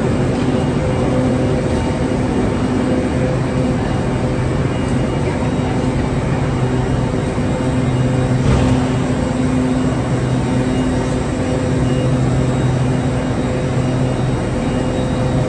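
A train running, a steady loud rumble with a low hum held at one pitch. There is a brief knock about halfway through.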